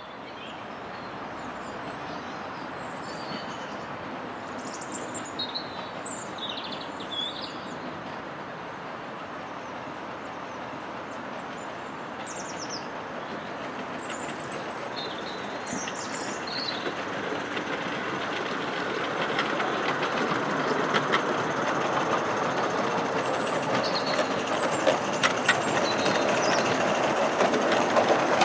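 Accucraft 16 mm scale live-steam Hunslet model locomotive running slowly: a steady steam hiss that grows louder from about two-thirds in as the engine comes closer, with faint clicks of its wheels on the track. Small birds chirp during the first half.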